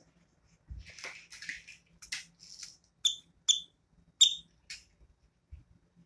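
Grey cockatiel vocalizing: about two seconds of soft scratchy chatter, then four short, sharp chirps over the next two seconds, the third the loudest.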